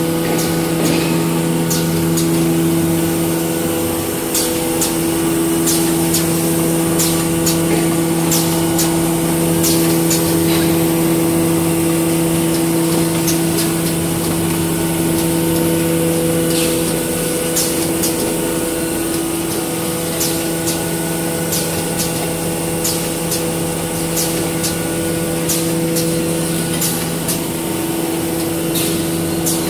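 Automatic facial tissue box packing line running: a steady machine hum with frequent short, sharp clicks from the packing mechanism and conveyors.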